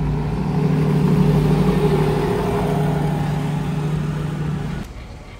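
A car engine running at a steady, even speed, slightly louder in the middle, that cuts off abruptly near the end.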